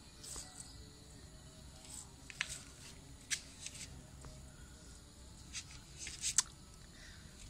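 Kittens playing: scattered light clicks, scratches and rustles, the sharpest a pair of clicks about six seconds in, over a faint low background hum.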